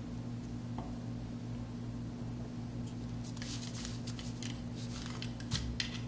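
Hard-alloy seal engraving knife cutting into a soapstone seal face: a run of short scratching strokes starting about three seconds in, with one light knock near the end, over a steady low hum.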